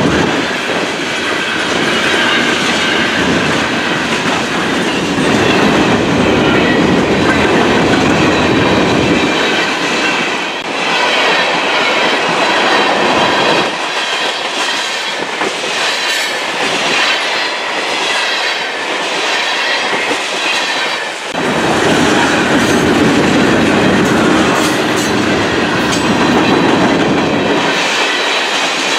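Freight cars of a manifest train, covered hoppers and tank cars, rolling past at track speed: a steady, loud rumble and clatter of steel wheels on the rails. The deep part of the rumble drops away for several seconds in the middle, then returns.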